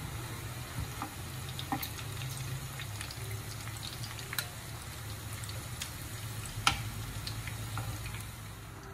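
Fish steaks shallow-frying in hot oil in a pan, a steady sizzle and crackle. Scattered sharp clicks of a metal spoon against the pan as the pieces are lifted out, the loudest about two-thirds of the way through.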